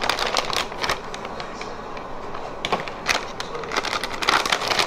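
Plastic bag of shredded cheese crinkling as a hand reaches in and pulls out cheese, in short irregular crackles, with a quieter stretch in the middle.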